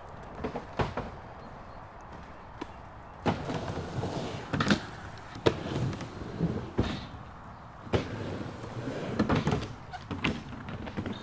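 A series of irregular knocks and thuds coming in uneven clusters, the sharpest one about halfway through.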